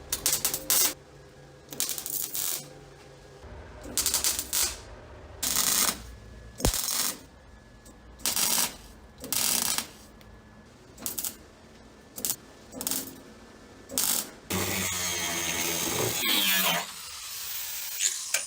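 MIG welder laying short tack welds on the sheet-metal body of a VAZ 2107: about a dozen brief crackling bursts with short pauses between them. Near the end a longer steady machine sound runs for about two seconds and falls in pitch as it stops.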